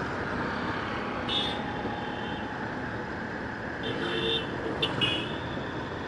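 Motorcycle running along a city street in traffic, a steady engine, wind and road noise, with vehicle horns tooting from surrounding traffic about a second in and twice more around four to five seconds in.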